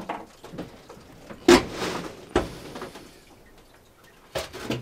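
A loud thump about a second and a half in, trailing off over about a second, with softer knocks after it.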